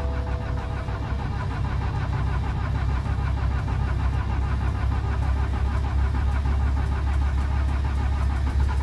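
BMW 320d's N47 four-cylinder diesel cranking steadily on the starter without firing. It is a long crank, as the freshly bled fuel system purges its air. A two-tone dashboard warning chime fades out about a second in.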